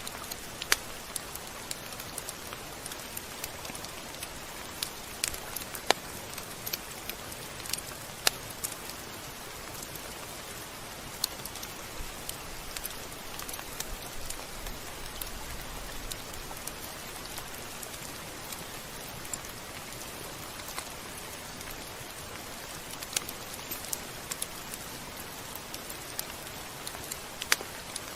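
Steady rain falling in an even hiss, with scattered sharp ticks of drops striking a surface.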